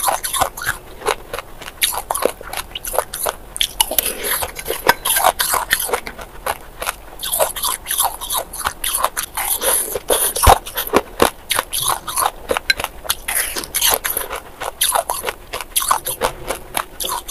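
Crushed ice being bitten and chewed close to the microphone: a continuous run of crisp crunches and crackles, with one sharp crack about ten seconds in the loudest.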